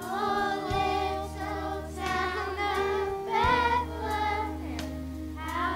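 Children's choir singing a Christmas song over instrumental accompaniment.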